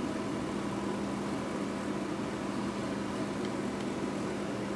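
Steady low hum with hiss: background machine noise in a room.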